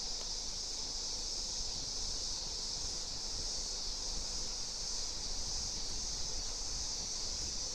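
Steady chorus of crickets, a continuous high-pitched buzz that does not change, over a low rumble.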